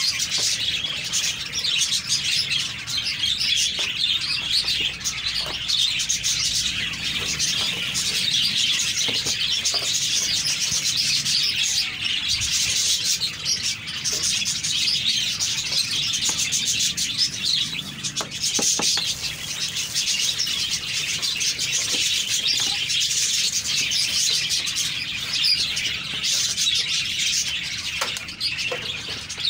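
Many small birds chirping at once, a dense unbroken chatter, with a few light knocks and rustles from cables and plastic wrap being handled.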